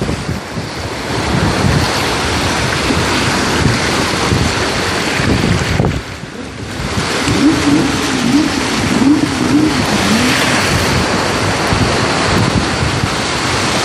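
Sea waves washing in continuously, with wind noise on the microphone. A voice briefly calls out about halfway through.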